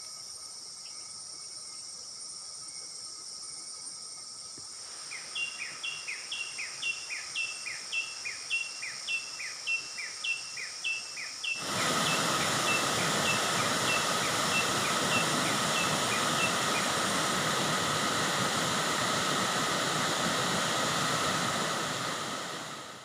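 Tropical forest ambience: a steady high-pitched insect buzz, with a bird call repeating about twice a second from about five seconds in. About halfway through, a loud, steady rushing noise comes in suddenly and covers the rest.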